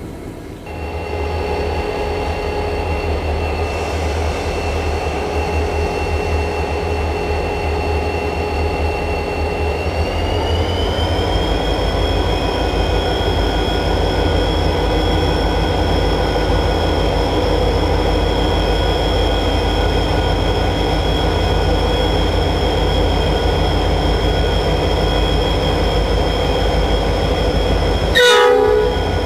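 A 3300 hp C class diesel-electric locomotive's engine, heard from the cab as it is throttled up for departure: the low rumble jumps in level about half a second in, and about ten seconds in it rises again while a high whine climbs in pitch and then holds steady. A brief, louder sound breaks in near the end.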